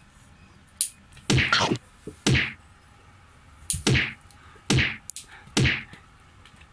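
A quick, irregular run of about six sharp whacks as a cat swats with its paw at a dog from inside a cardboard box.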